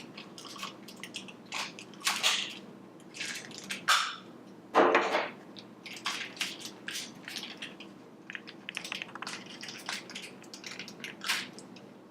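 Mystery-toy packaging being handled and opened by hand: a run of irregular clicks, rustles and scrapes, with one louder knock about five seconds in.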